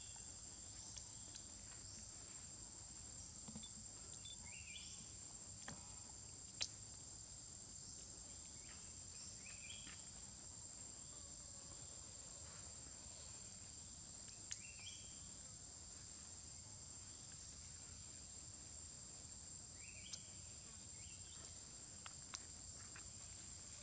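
Steady high-pitched drone of insects, with short rising chirps every few seconds and a few faint clicks.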